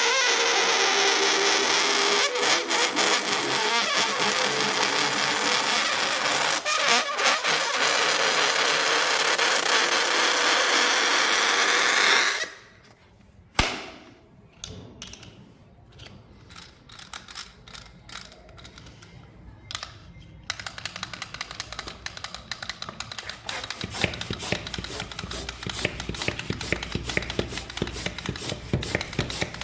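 Air rushing out of a rubber balloon's neck with a wavering squeal for about twelve seconds, then cutting off suddenly. After that only faint clicks and light crackling.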